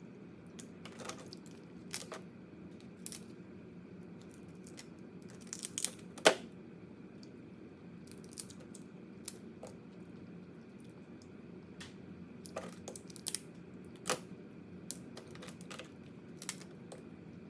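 Crab shells being cracked, pulled apart and picked at while eating: irregular sharp cracks and clicks, the loudest about six seconds in, over a steady low hum.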